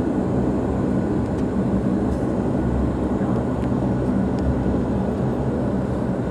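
Airliner cabin noise: a steady low rumble of the engines and airframe heard from inside the passenger cabin during the landing, with a few faint clicks and rattles.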